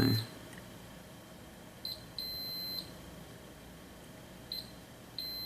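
Multimeter continuity tester beeping as its probes touch the pins of a freshly soldered SOT23-5 chip, checking for solder bridges. It gives several high beeps on one pitch, mostly short chirps with one steadier tone of about half a second just after two seconds in. A beep signals a connection between the probed points.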